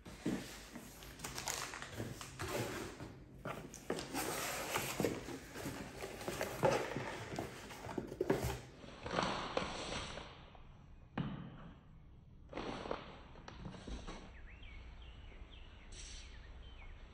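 Cardboard shipping boxes being handled and opened: flaps and packaging rustle and crackle, with many light knocks, busiest in the first half. After that come a few separate short rustles and knocks.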